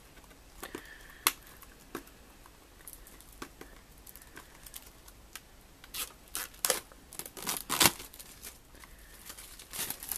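Plastic shrink-wrap being picked at and torn off a DVD case: a few sharp crackles early on, then a dense run of crinkling and tearing about six to eight seconds in.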